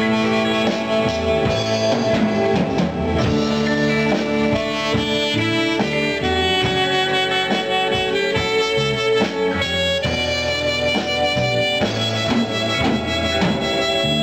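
Small acoustic band playing live: two acoustic guitars with long held melody notes over them.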